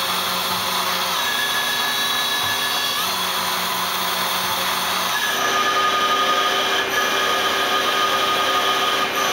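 Star SB-16C CNC Swiss lathe running its program: a steady mechanical whine of several tones over a hiss. The tones shift in pitch about a second in, near three seconds and again just after five seconds, where the sound gets slightly louder.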